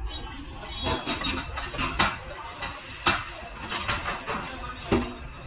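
Irregular metallic clinks and taps of hand tools against steel suspension and axle parts, the sharpest at about two, three and five seconds in, some with a short ring.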